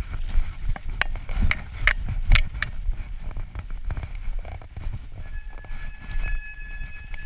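Mountain bike rattling and clattering down a rough dirt trail, with sharp knocks from bumps that come thickest in the first three seconds. About five seconds in, a faint steady high-pitched squeal joins and holds.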